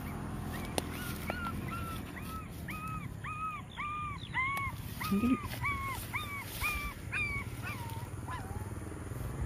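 Puppies crying: a run of short, high, arched whimpering cries, about two a second, that tail off near the end.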